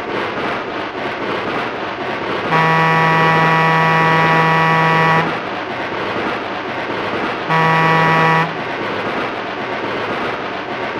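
Digital model-train sound recording of a Pennsylvania Railroad duplex steam locomotive: a long whistle blast starting about two and a half seconds in, then a short blast a few seconds later, over the locomotive's continuous running noise.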